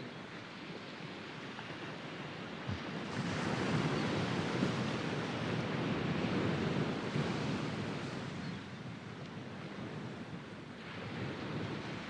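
Gentle sea waves breaking on a sandy beach and washing up the sand. One wave swells about three seconds in, stays loudest for a few seconds, then fades, and a smaller one rises near the end.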